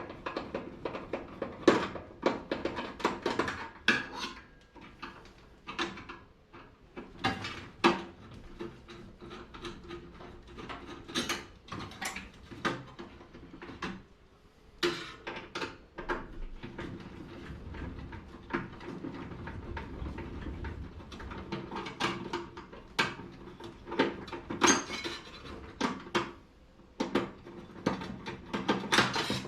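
Irregular metallic clanks, clicks and rattles of microwave sheet-metal parts and hand tools being handled and pried during a hand teardown of a microwave oven.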